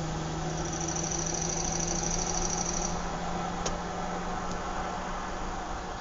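Suburban outdoor ambience: a steady low engine hum, like a vehicle idling, over a constant background noise. A high, rapidly pulsing chirp sounds for a couple of seconds early on, and a single faint click comes a little past the middle.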